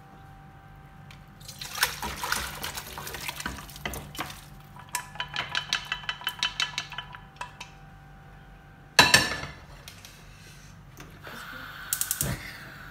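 Mutton stew and broth poured from an aluminium pressure cooker into a non-stick pot, splashing and sloshing, then a run of quick metallic taps against the cooker. About nine seconds in there is a single loud metal clank, the loudest sound.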